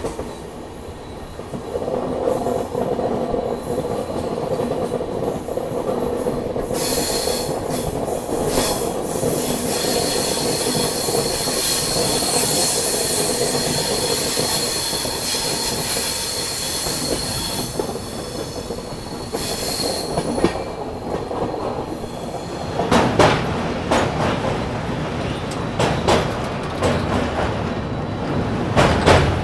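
An Indian express train with LHB coaches running around a curve, its wheels squealing on the rails with a steady high tone over the running noise. About 23 seconds in, sharp irregular clanks and rattles set in as the train rolls onto a steel truss bridge.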